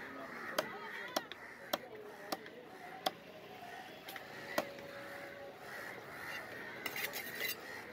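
Heavy cleaver chopping fish on a wooden chopping block: sharp, separate knocks a little over half a second apart, about six in the first five seconds, then a few quicker, lighter taps near the end.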